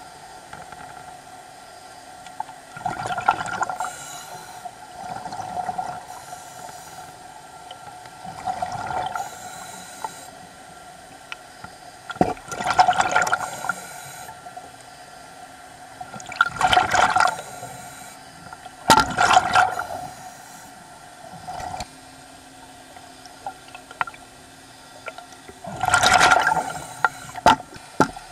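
A diver breathing underwater: loud gushes of exhaled air bubbles every few seconds, with quieter stretches between, over a steady hum.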